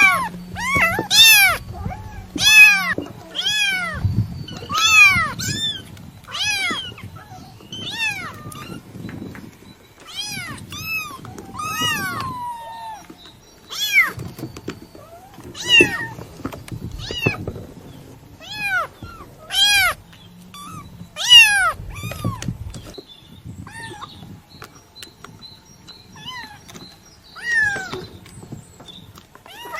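Kitten meowing over and over: a run of short, high mews, each rising then falling in pitch, coming close together at first and more spaced out later.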